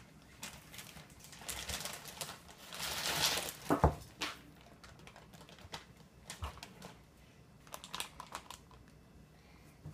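Plastic freezer bags rustling and crinkling as they are lifted and opened, with a sharp knock a little under four seconds in, then scattered light clicks and taps as the inner zip-top bag is handled.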